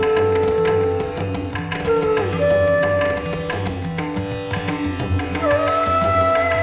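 Instrumental background music in an Indian classical style: long held melody notes that slide in pitch, over a steady drone and a repeating rhythm.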